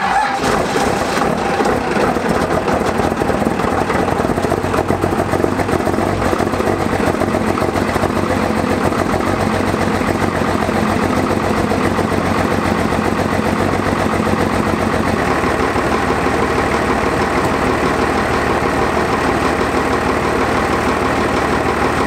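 First-generation Dodge Ram pickup's diesel engine starting cold and then idling steadily. It has not been run since it was bought. The idle steps down slightly about fifteen seconds in.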